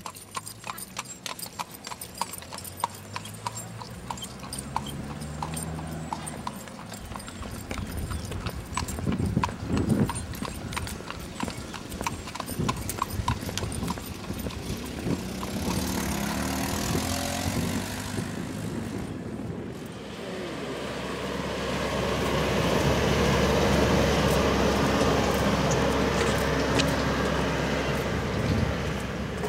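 Horses' hooves clip-clopping on the paved road as horse-drawn carriages trot past, through roughly the first half. Later a tourist road train passes, its engine running with a steady rumble that is loudest near the end.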